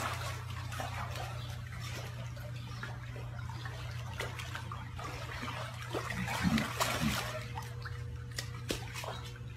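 Pool water sloshing and lapping as a young lion swims through it, over a steady low hum.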